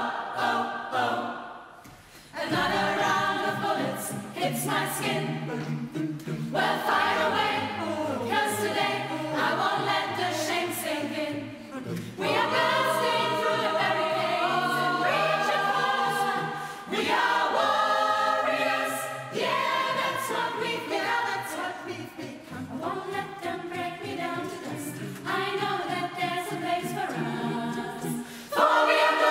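Choir singing in phrases, with brief breaks between them.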